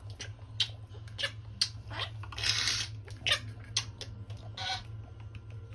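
Pet budgerigars chirping in many short, sharp calls, with one longer harsh squawk about two and a half seconds in, over a steady low hum.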